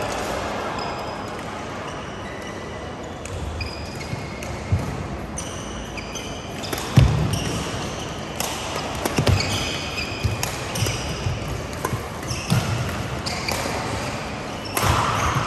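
Badminton doubles rally: rackets striking the shuttlecock, shoes squeaking on the court mat, and thuds of the players' footwork, the loudest thud about seven seconds in, over the general noise of a busy hall.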